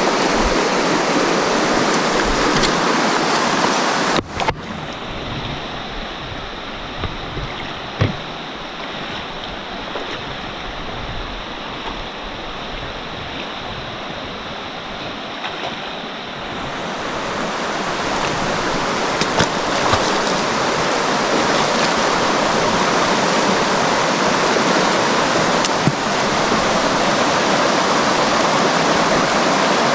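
Steady rush of fast-flowing water from a jungle stream or river. The sound changes abruptly about four seconds in and again just past halfway, where one stretch of running water gives way to another.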